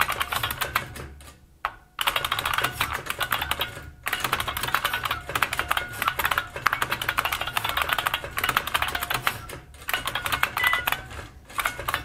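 Fast, loud typing on the IBM 6780 Quietwriter's keyboard: rapid key clicks in bursts of a few seconds with brief pauses. A short high beep sounds about ten and a half seconds in, the machine's warning that the end of the line is near.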